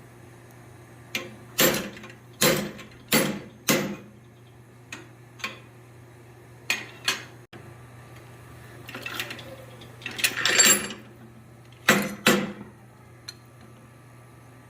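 Hammer blows ringing on hot steel at an anvil, struck in short irregular runs of two to four, with a rushing scrape for a couple of seconds near the middle. A steady low hum runs underneath.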